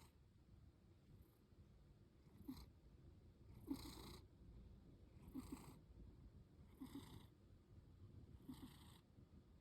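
A young cat snoring softly in her sleep: a quiet, raspy breath about every one and a half seconds, each with a faint crackle.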